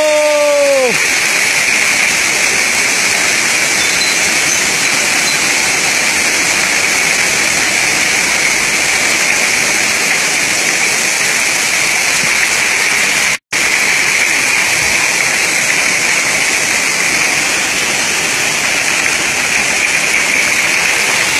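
Heavy rain pouring down in a steady, loud hiss during a rain and hail storm. The sound drops out for an instant about halfway through.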